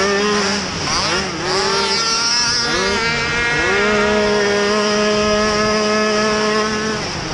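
Youth racing quad's small engine heard onboard, revving up in short rising pulls several times, then held at a steady high rev for about three seconds before easing off near the end.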